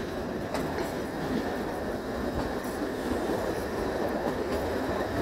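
Kalka–Shimla narrow-gauge toy train running along the track, heard from aboard one of its coaches. It makes a steady rumble with occasional clicks of the wheels on the rails.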